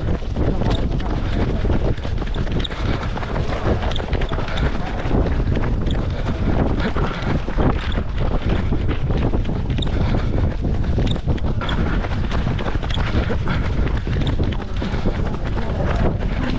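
Wind buffeting the microphone of a runner's body-worn action camera, a steady low rumble, with short scattered taps from the runner's footfalls on wet asphalt.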